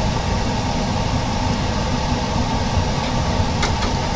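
Steady machine hum and hiss, with a couple of faint clicks near the end.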